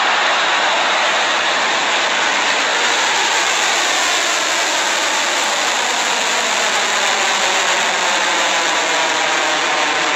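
Electron rocket's nine Rutherford first-stage engines firing through liftoff and the first seconds of climb: a loud, steady rush of exhaust noise.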